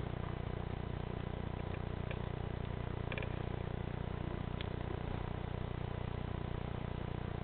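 Steady low mechanical hum at an even level, with a few faint ticks about two, three and four and a half seconds in.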